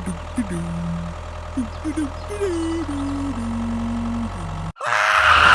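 A steady low engine-like rumble with a tune of held notes stepping up and down over it. It cuts off abruptly near the end, and a loud noisy crash follows.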